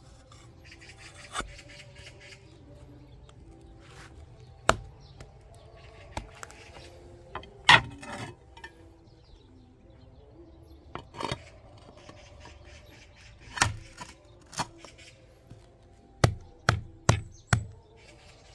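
Hard objects knocked, set down and rubbed on a wooden tabletop: scattered sharp clicks and knocks, with a quick run of four near the end, as ceramic tiles are handled on an old wooden table.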